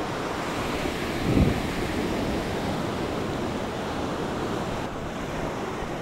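Small waves breaking and washing up a sandy shore in a steady wash of surf. Wind buffets the microphone, with a brief low gust about a second and a half in.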